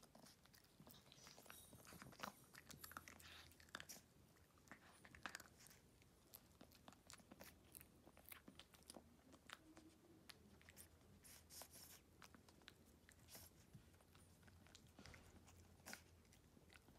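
Shih Tzu puppy chewing a crumbly treat: faint, irregular crunches and clicks.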